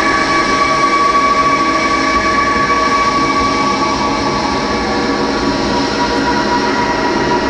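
A steady, dense mechanical drone with several held high tones, like the running noise inside a train, played as the soundtrack of a dance piece.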